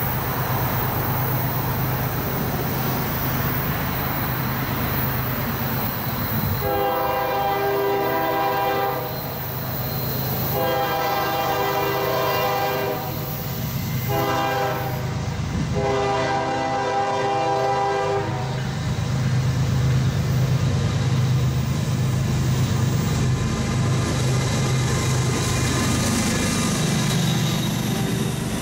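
Norfolk Southern diesel locomotive sounding its air horn as it approaches: two long blasts, a short one and a long one, the grade-crossing signal. Its engine then rumbles louder as the locomotive and its intermodal stack train pass close by.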